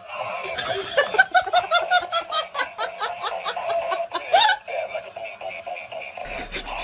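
A burst of laughter, a quick run of short "ha" sounds lasting about three seconds, over a steady tone.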